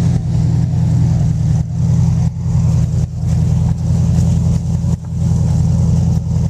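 Jeep wagon's engine running loud and steady under load while its tyres spin in snow, with the vehicle stuck and being pulled out on a tow strap.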